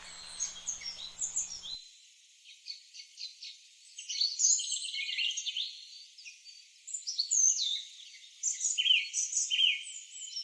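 Songbirds chirping and singing in quick high notes and short trills, sounding thin, with all low sound cut away.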